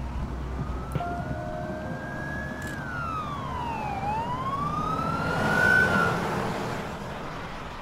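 A siren wailing slowly up and down: it rises, falls about four seconds in, rises again and fades near the end, over a steady low rumble.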